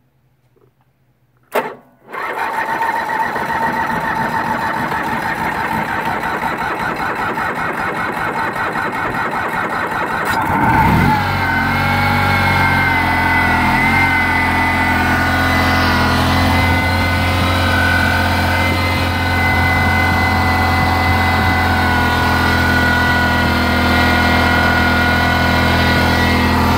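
Honda 4514 lawn tractor's liquid-cooled engine being cold-started after sitting five or six months. The electric starter clicks in and cranks steadily for about eight seconds. The engine then catches, its speed wavers briefly, and it settles into a steady idle.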